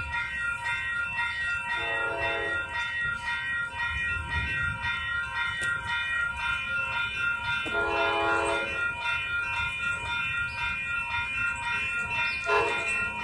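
Grade-crossing warning bell ringing steadily, with an approaching train's horn sounding its crossing signal over it: a long chord blast about two seconds in, a longer one around eight seconds, and a short one near the end.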